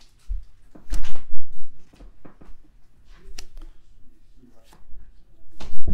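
Baseball cards being flipped through by hand: short papery flicks and taps as cards slide off the stack, loudest about a second in and again near the end.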